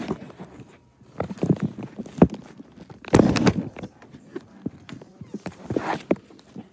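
Handling noise from a tablet's microphone being carried against a shirt: irregular rustling, bumps and knocks, the biggest burst about three seconds in.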